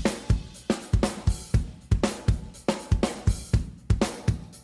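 Original, unprocessed recorded drum track built around sharp snare hits: a steady beat of about three strikes a second. It is the uncolored reference before the same track is heard convolved with a bookshelf speaker's response.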